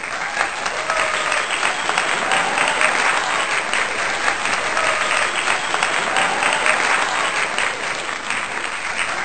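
A crowd of wedding guests clapping steadily, dense and unbroken, with faint voices mixed in.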